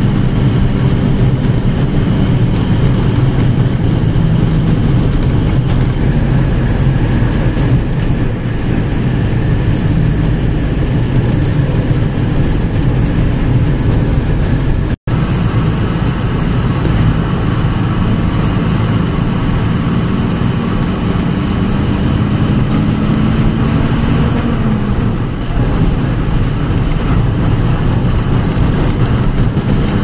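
Engine and road noise of a moving vehicle, heard from inside it: a steady low hum with tyre and wind noise. The engine note climbs slowly and then drops back about three-quarters of the way through. The sound cuts out for an instant about halfway through.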